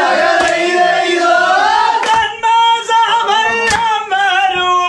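A group of men singing vanchipattu, the traditional Kerala snake-boat song, many voices together in loud, wavering held notes, with a few sharp hits cutting through.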